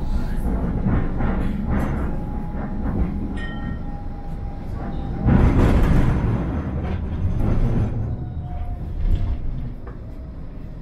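Tram running on its rails, heard from inside the passenger car: a steady low rumble of wheels and running gear, with a louder surge about halfway through.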